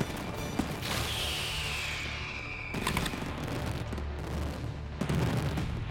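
Aerial fireworks going off in dense crackling volleys, with a falling whistle about a second in and sharp bangs near three and five seconds, over a low background music bed.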